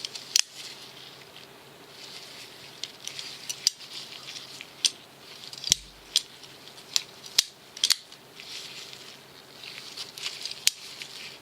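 Brous Bionic flipper folder being worked open and shut by hand: about nine sharp metallic clicks as the blade snaps out and drops back onto its detent, with faint rubbing in between. The detent ball is running dry, with no grease on it.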